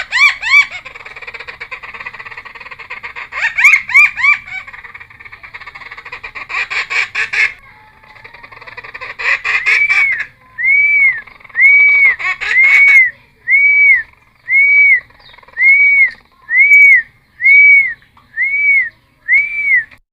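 Cucak timor songbird in full song: a jumble of quick, varied whistled phrases, then a steady run of about a dozen identical arched whistles, roughly one a second.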